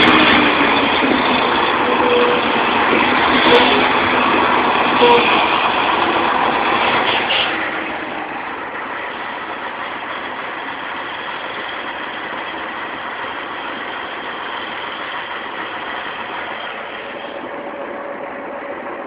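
Scania 113H truck's 11-litre six-cylinder diesel running loud through a straight exhaust with no muffler. It is louder for the first seven seconds or so, then drops to a steadier, lower run.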